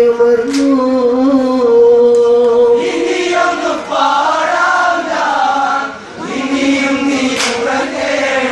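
Men's group singing an Onakkali song, the chant of Kerala's Onam circle dance. A long held note for about the first three seconds, then the chorus comes in fuller with a moving melody, pausing briefly near six seconds before carrying on.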